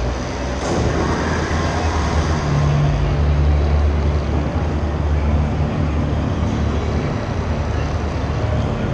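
Propeller motors of a remote-controlled indoor blimp running close to the microphone: a low hum that swells from about two and a half seconds in, eases, and swells again near the end, over a steady background din.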